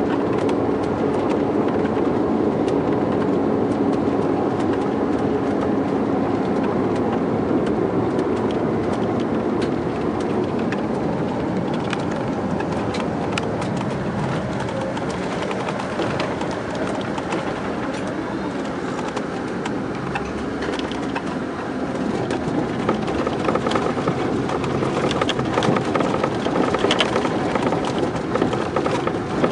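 Scania K420 coach's rear-mounted diesel engine running steadily under way, a continuous drone with faint rattles; the engine note grows louder over the last several seconds.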